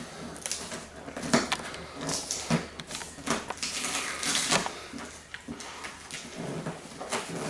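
A cardboard shipping box being cut open with a knife and handled: irregular scraping, tearing and rustling of cardboard and packing tape, with scattered clicks and knocks.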